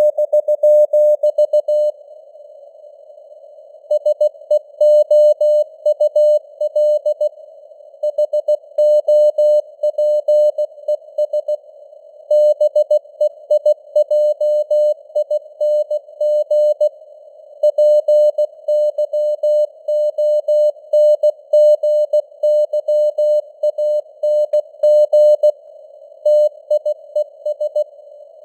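Morse code (CW) sent at 16 words per minute as a single mid-pitched tone keyed on and off in dots and dashes, with a pause of a second or two between groups. It sits in a narrow band of simulated radio hiss.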